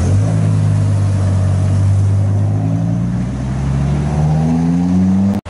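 Large sports-car engine pulling away, a deep steady note that climbs slowly in pitch as it gathers speed. It cuts off suddenly near the end.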